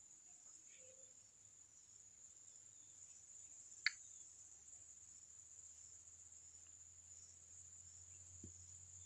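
Near silence: faint steady high-pitched background hiss, with a single sharp click about four seconds in and a faint low hum rising near the end.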